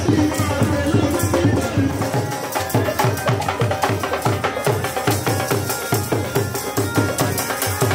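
Bhangra folk music: a dhol drum beats a steady rhythm, with jingling and clacking hand percussion over it.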